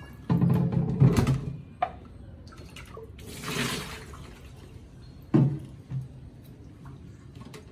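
Plastic water-purifier filter housing handled over a stainless steel sink: loud thumps in the first second or so, water splashing out of the tipped housing about three and a half seconds in, and a sharp knock a little after five seconds.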